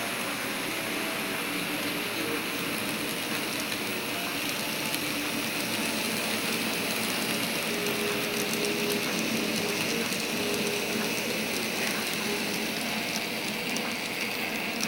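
N-scale model freight train led by eight Union Pacific diesel locomotives rolling along the layout track: a steady rattle of small wheels on the rails, with a faint hum now and then from the locomotive motors.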